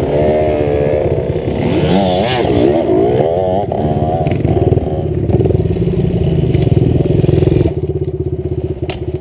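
Small 65cc two-stroke dirt bike engines running close by: a fast, steady idle throughout, with engines revving up and down in the first few seconds as bikes pass. The engine noise drops noticeably a little before the end.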